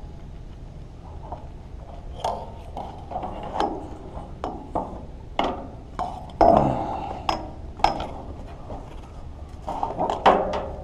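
Irregular knocks and clanks, about a dozen, of fishing gear being handled against the pier's metal railing and deck boards. The loudest come about six and ten seconds in, over a steady low rumble.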